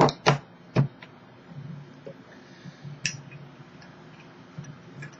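Sharp clicks and knocks from butane lighters being handled: three loud clicks in quick succession, then a lighter click about three seconds in and a few faint ticks.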